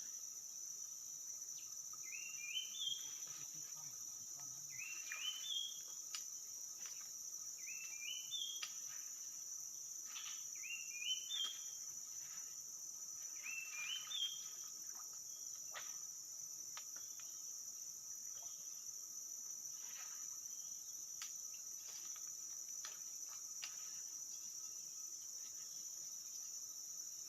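Forest insects keep up a steady high-pitched drone while a bird repeats a short rising, stepped call about every three seconds, stopping about halfway through. There are a few faint clicks.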